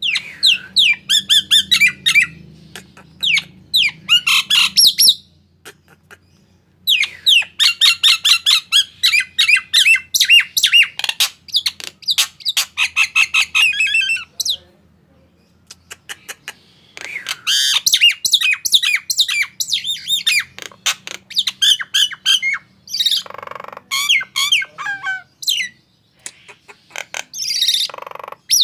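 A jalak Nias starling calling in rapid runs of sharp whistles and chirps, with a few harsh squawks. The calling comes in three bouts with two short pauses between them.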